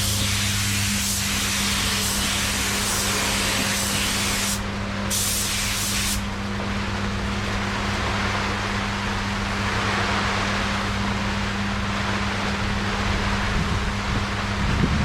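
Paint spray gun hissing with compressed air over a steady machine hum. About six seconds in the hiss becomes duller.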